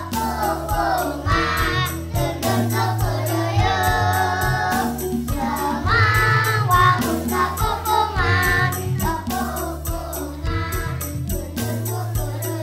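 A Balinese children's dance song: sung vocals over a steady beat and a held bass line.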